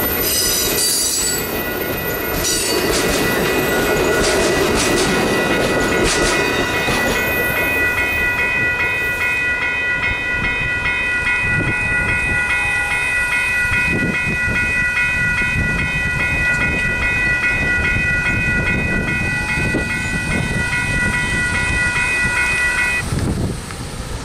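Bi-level Amtrak passenger cars roll past over the rails with clicking wheels and a brief wheel squeal. The grade crossing's electronic bells, a WCH Type 1.5 and a GS Type 3 e-bell, ring on in a fast steady pattern and stop shortly before the end as the gates begin to rise.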